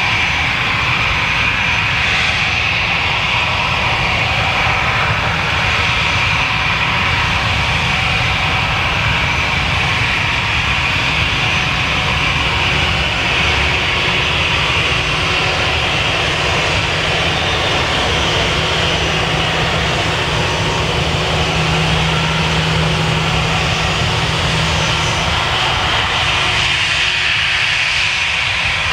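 Airbus A320 jet engines running at taxi power: a steady jet whine and hiss over a low rumble.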